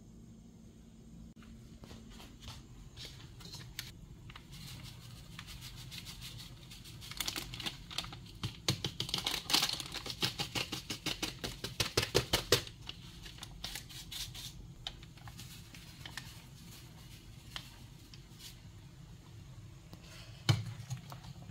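Plastic packet of Knorr sinigang tamarind soup mix crinkling as it is handled and shaken out over a pot, a dense run of crackles lasting about five seconds midway, over a low steady background hum. A single sharp knock near the end.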